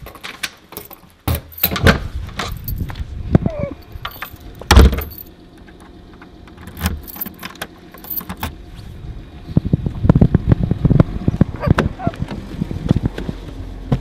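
A door handle turned and a door knocking and thumping shut, the loudest thump about five seconds in, then a bunch of keys jangling at a door lock. Near the end comes a dense clatter of knocks and rustling.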